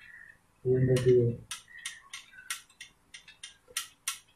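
Scattered sharp metallic clicks and taps of hand tools working on a motorcycle's front fork as it is reassembled. A short voiced sound comes about a second in.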